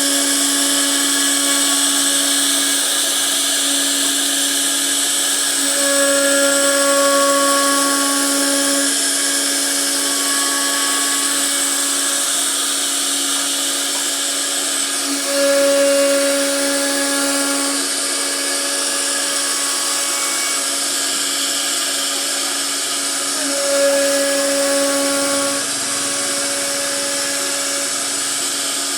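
CNC router spindle running steadily as it cuts a design into wood: a steady whine over a hiss. It swells briefly three times, about six, fifteen and twenty-four seconds in.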